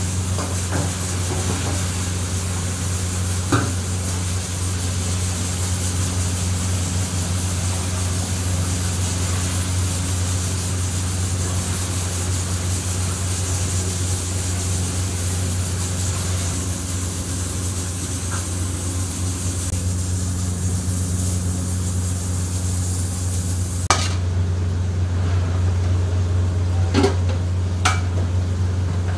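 Chicken deep-frying in a commercial fryer, the oil sizzling steadily over a low, steady hum. About four seconds before the end the sizzle drops away, and a metal spoon knocks and scrapes a few times in a pot of rice and peas.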